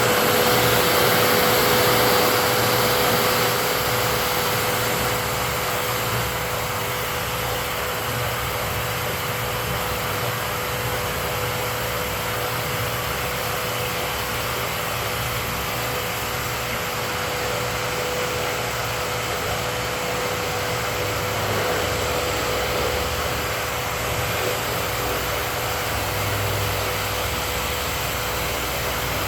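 Dust-collection vacuum motor running steadily with a constant whine, a little louder for the first few seconds.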